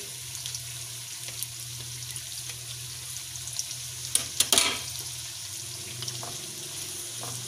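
Sliced onions frying in hot oil in a deep pan: a steady sizzle, with a few sharp clicks about four to five seconds in.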